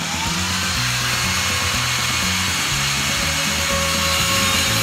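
Small 4-inch handheld circular saw with a 5-amp motor, whining up to speed right at the start and then running steadily.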